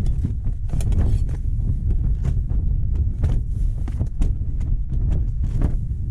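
Wind buffeting with a steady low rumble, over which come repeated sharp clicks and metallic clinks as a backpacking gas stove burner and metal pot are handled and screwed onto a gas canister.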